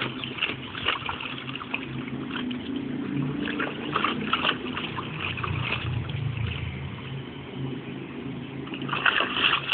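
Water splashing and sloshing in a shallow plastic kiddie pool as a dog paws and steps through it, in bursts near the start, around four seconds in and again just before the end, over a low steady rumble.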